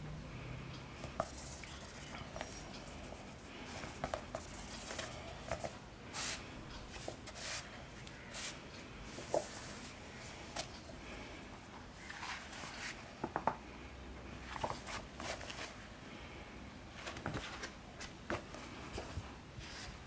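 Paperback manga volumes being handled: paper and covers rustling and rubbing, with small light taps and ticks scattered irregularly throughout.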